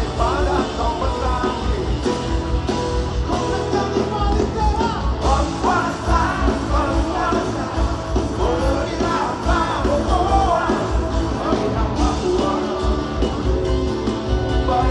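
A live rock band playing a song with a steady beat, and a voice singing over it.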